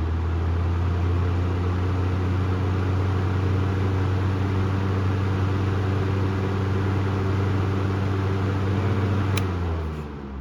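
Honeywell HT-70-19 10-inch table fan running steadily on high speed, a motor hum under the rush of air from the blades. Near the end a click is heard and the sound drops as the fan is switched off and begins to spin down.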